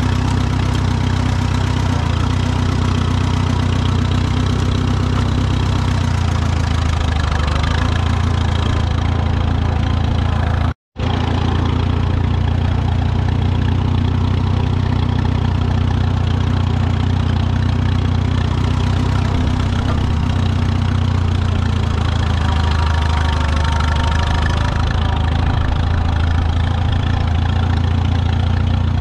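Vintage farm tractor engine running steadily, with a brief total dropout a little over ten seconds in.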